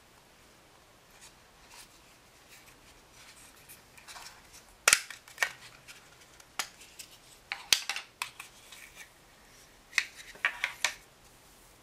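A plastic toy cake slice being pulled apart and unwrapped by hand: a string of sharp plastic clicks and snaps with paper crinkling between them. The snaps come in clusters from about five seconds in.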